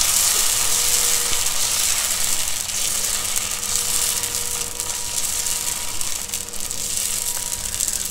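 Dosa batter sizzling on a hot cast-iron tawa as a ladle spreads it out in circles, a steady high hiss that slowly fades as the batter settles.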